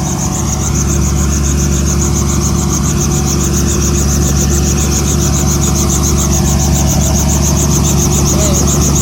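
Helicopter running steadily: a loud, constant engine drone with a fast, even pulsing from the rotor.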